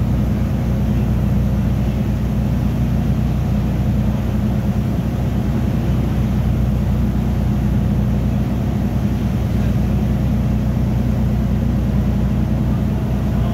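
A boat's engine running steadily, heard on board as a low drone with several steady tones, with water and engine hiss over it.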